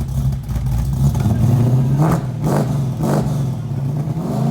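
Car engine running with a steady low note, blipped up in revs three times in quick succession in the second half and once more at the end.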